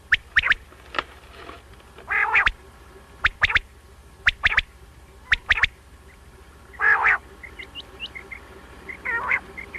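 Common quail calling: short sharp call notes, mostly in pairs, repeated every second or so, with a few harsher, noisier calls about half a second long and some faint short chirps near the end.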